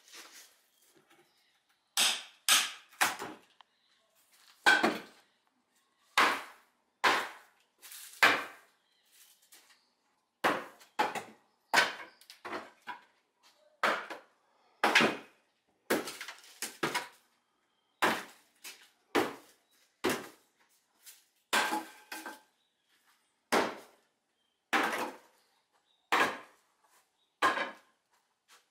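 Repeated short scraping knocks of hand tools against soil-filled containers, coming irregularly about once a second with brief pauses, as soil is dug out and moved between containers.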